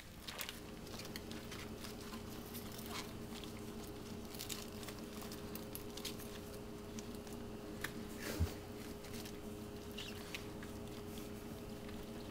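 Banana-leaf parcels rustling and crinkling as they are pushed into place in a glass baking dish, with light taps and clicks against the glass and one sharper knock a little past the middle. A steady low hum runs underneath.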